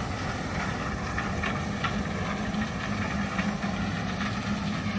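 Heavy farm machinery's diesel engine running steadily, with faint irregular mechanical ticking over the hum.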